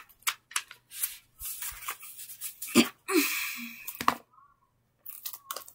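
Handling noise from a small box being moved about: a string of taps and clicks with a longer rustle about three seconds in, and a brief voiced sound just before it.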